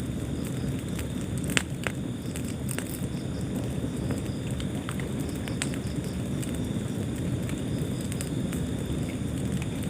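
Wood fire burning in a fireplace: a steady low rumble of the flames with sharp crackles and pops scattered through, the loudest pop about a second and a half in.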